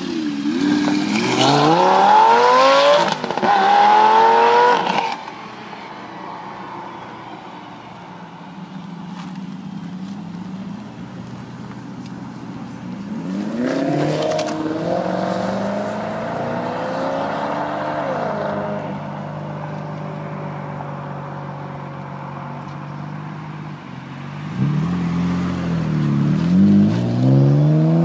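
Sports cars accelerating hard away one after another. A Lamborghini Gallardo Spyder's V10 rises steeply in pitch twice in the first five seconds, a Maserati GranTurismo's V8 pulls away with a rising note around the middle, and another car's engine accelerates near the end.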